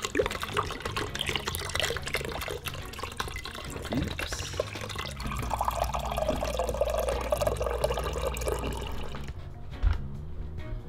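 A thin stream of water pouring into a rice cooker's inner pot of dry oats, then water running from a water-cooler tap into a glass measuring cup, the pitch of the filling dipping and then rising as the cup fills. A single knock comes near the end.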